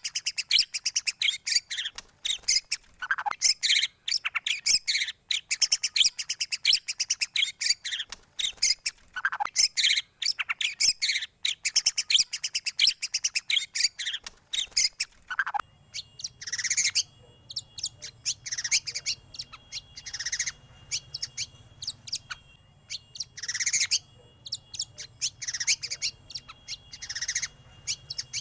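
White-rumped shama song: rapid, dense chirps and trills, changing about halfway through to spaced, separate phrases with falling notes over a faint low hum.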